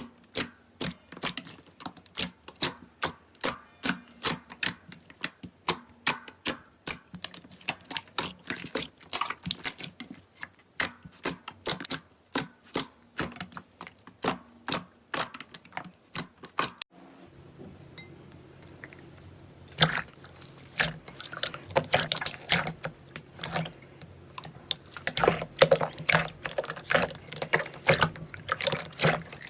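Slime being squished and worked, making wet clicks and pops about twice a second. About halfway through these change to a faster, denser crackle.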